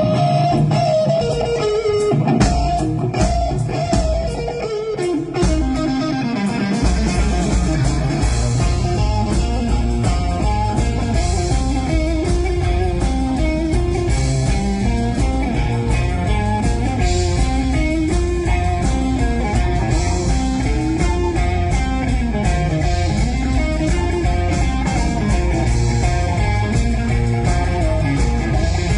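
Live blues-rock band playing: the electric guitar opens alone with gliding, bent notes, and the full band comes in about seven seconds in.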